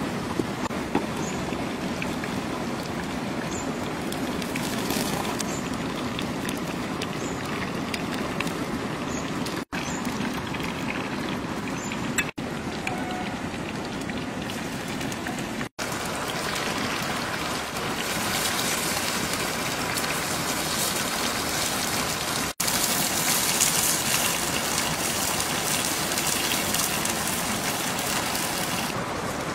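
Steady sizzling hiss of mushrooms frying in a pan over a wood fire, broken by several abrupt cuts. The sizzle gets brighter and hissier from about halfway through.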